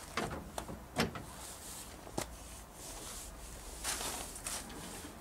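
Hands working at an open car bonnet: a few separate sharp clicks and knocks, then a short scraping rustle about four seconds in.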